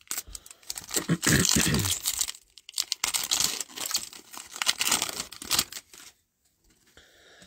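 Foil trading-card pack wrapper being torn open and crinkled by hand, a dense crackling that lasts about five seconds and stops near the end.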